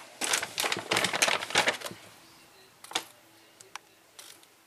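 Clatter of hard objects being handled: a quick run of sharp clicks and knocks lasting about two seconds, then a few single clicks, one with a brief metallic ring.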